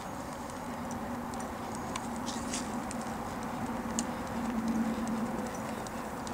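Hoofbeats of a Missouri Fox Trotter gelding moving on soft arena dirt, with scattered faint clicks, over a steady low hum.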